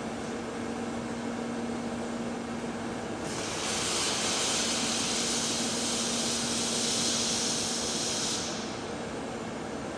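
TIG welding arc hissing steadily for about five seconds, starting about three seconds in and cutting off, over a constant low hum.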